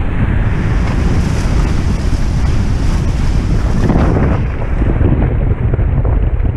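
Wind buffeting the microphone as a loud low rumble, over the rush and splash of water along the hulls of a Hobie 16 catamaran sailing fast. Spray surges louder about four seconds in.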